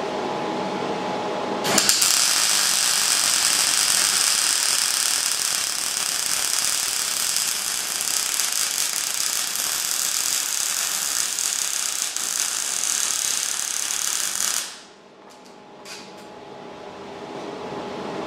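MIG welder arc crackling and hissing as a bead is laid on a steel spacer bracket on an axle casing. It strikes about two seconds in, runs steadily for about thirteen seconds and cuts off abruptly. A quieter steady hum is heard before and after the weld.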